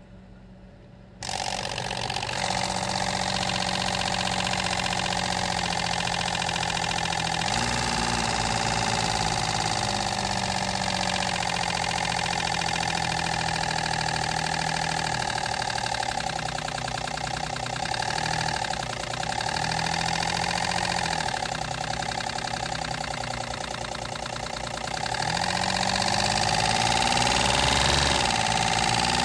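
A paper strip held against the spinning three-blade cardboard fan of a homemade DC-motor blower makes a rapid engine-like buzz, much like a three-cylinder kei-car engine. It starts suddenly about a second in, and its pitch rises and falls with fan speed, like an engine revving up and settling back.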